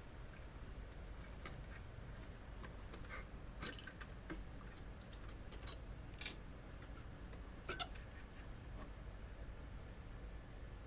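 Scattered small clicks and taps of a screwdriver and printer parts being handled while screws are taken out, the sharpest about six seconds in, over a low steady hum.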